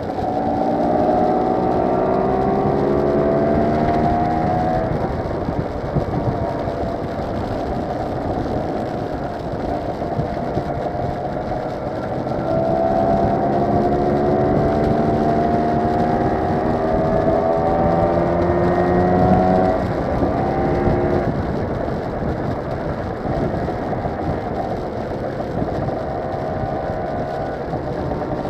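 Motor scooter engine heard from the rider's own machine, its pitch climbing as it accelerates in the first few seconds and again from just before halfway to about three quarters through. Between the pulls the engine sinks under a steady rush of wind and road noise.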